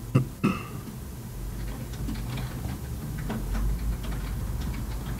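Computer mouse clicks: two or three sharp clicks within the first half second, then only faint scattered ticks over a low steady hum.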